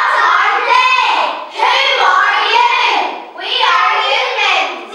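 A group of young children singing, in three phrases of about a second and a half each with short breaks between.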